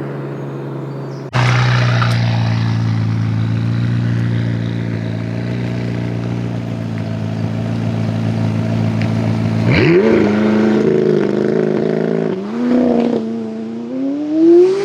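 McLaren 570S's stock 3.8-litre twin-turbo V8 (M838T) running at a steady engine speed, then revving hard with rising pitch several times in the last few seconds.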